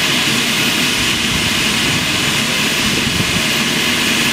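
Eurocopter EC135 air-ambulance helicopter running on the ground with its main rotor turning: a loud, steady turbine whine over the rush of the rotor.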